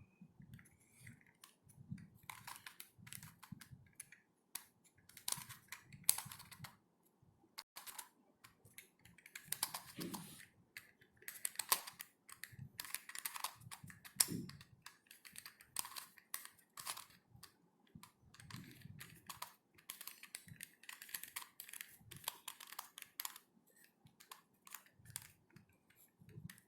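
Plastic corner-cut helicopter cube being twisted by hand: irregular clicking and clattering as its pieces turn and snap into place while it is worked back from a jumbled shape into a cube.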